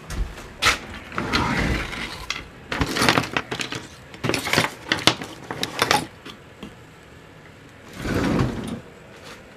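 Clatter of small household objects being handled and rummaged through: a run of knocks, clicks and rattles over the first six seconds, then a short rustling burst near the end.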